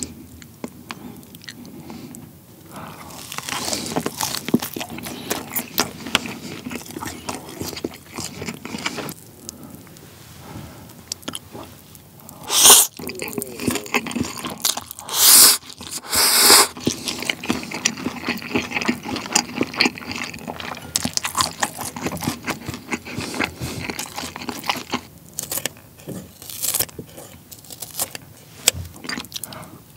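Close-miked eating: chewing and crunching with wet mouth sounds. About halfway through come three loud slurps of jjapagetti (black-bean sauce instant noodles).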